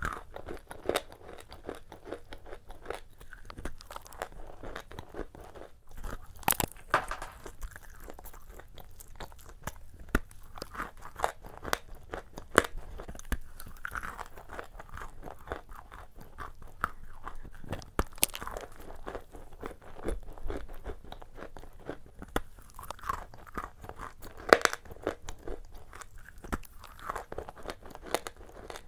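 Close-miked biting and chewing of a crumbly shortbread cookie coated in brown paste: irregular sharp crunches between softer chewing, with a few louder crunches scattered through.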